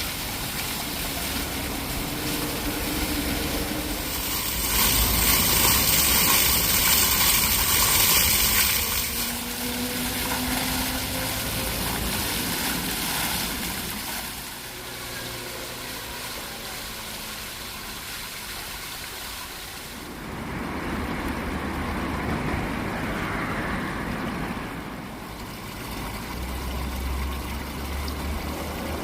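Rushing water, rising to its loudest for a few seconds and then dropping back. The low hum of a motor vehicle engine runs beneath it at times.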